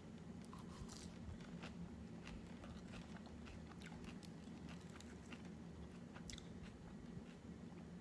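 Close-up biting and chewing of leafy greens eaten with chopsticks: a scatter of small crunches and mouth clicks over a faint steady low hum.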